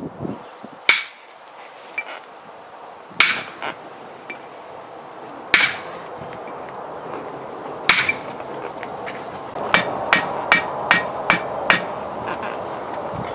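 Blacksmith's hammer striking a red-hot railroad spike on a steel anvil, each blow giving a brief metallic ring. There are four heavy blows a couple of seconds apart with light taps between, then a quick run of about seven lighter blows near the end.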